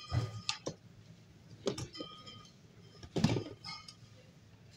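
Scattered clinks and knocks of goods in a shop, some with a short metallic or glassy ring; the loudest is a knock about three seconds in.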